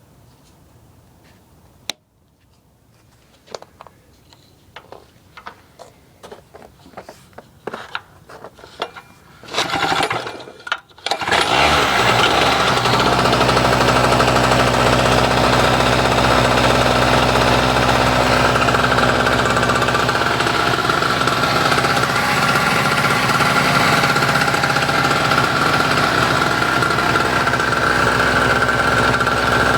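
Storm Cat 800-watt, 2 HP two-stroke portable generator being started. A few clicks and knocks come first, then two short bursts of noise just before the engine catches about eleven seconds in. It then runs loud and steady.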